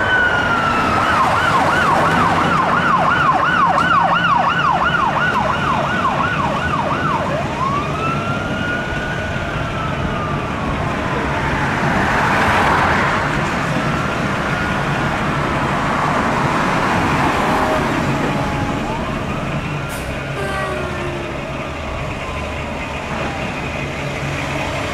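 Fire department emergency vehicle sirens over a diesel engine's rumble. The siren cycles fast in a yelp for about seven seconds, then switches to a slow wail that rises and falls several times. A loud rushing noise swells around twelve seconds in.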